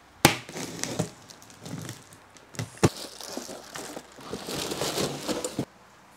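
Clear plastic bag crinkling and cardboard rustling as hands unpack a shipping box, with two sharp knocks, one near the start and one about halfway through. The handling noise stops abruptly near the end.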